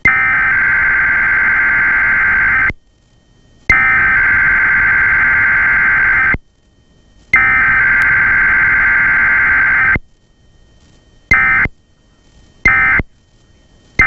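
Emergency Alert System SAME header for a weekly test: three long bursts of digital data tones, each about two and a half seconds with a second's pause between. Near the end come two short bursts of the same tones, about a second apart, the start of the end-of-message code.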